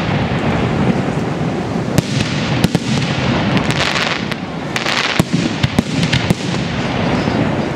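Aerial fireworks display: shells bursting one after another with sharp bangs over a continuous rumble. Two brief hissing, crackling stretches come about four and five seconds in.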